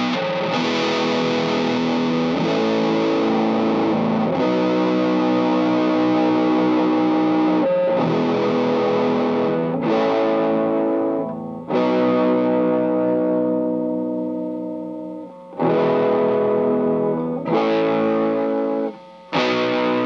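Electric guitar (a Fender Coronado II) through a Greer Amps Gorilla Warfare MKII, a RAT-style distortion/fuzz pedal with an LM308 chip, into a Strymon Iridium amp simulator: heavily distorted chords, strummed and left to ring, a new chord about every two seconds. The sound is cut short twice near the end before the next chord.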